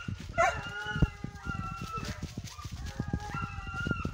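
Several overlapping long, held howling calls from a pack of hunting dogs baying on a chase, over the crunch and thump of footsteps pushing through brush.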